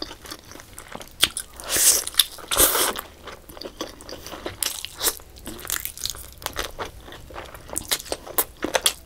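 Close-miked eating sounds of biting into a curried chicken leg piece and chewing it: a run of short wet clicks and smacks, with two longer crunching bites about two and three seconds in.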